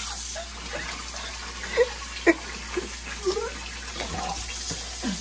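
Kitchen sink faucet running, its stream pouring into a plastic container, with a few short knocks over it, the loudest about two seconds in.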